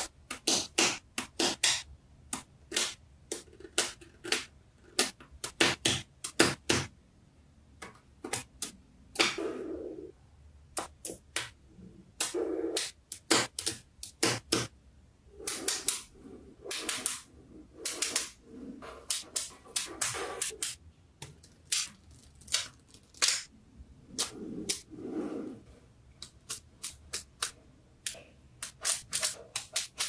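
Small magnetic balls clicking and snapping together as they are pressed onto blocks and walls, in quick clusters of sharp clicks, with a few softer scraping sounds in between.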